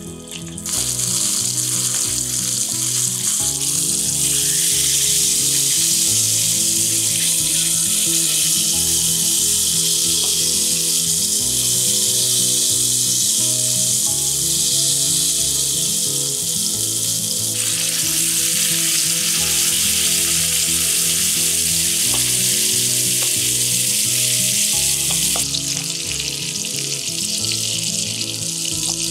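Spanish mackerel fillets sizzling in hot olive oil in a frying pan. The sizzle starts about a second in, as the fillets go in skin-side down, and eases a little near the end.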